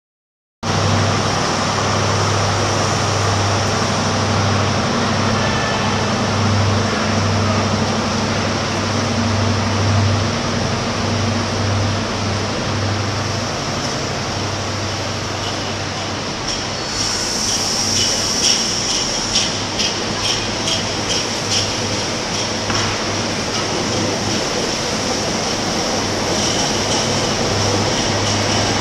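InterCity 125 High Speed Train running past, its diesel power car droning steadily with a low hum. The coaches roll by, and from a little past halfway the wheels give a string of clicks over rail joints along with a high hiss.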